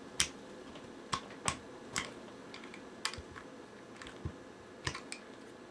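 About ten light, irregularly spaced clicks and taps of a small screwdriver working on the shell of an airsoft gas grenade.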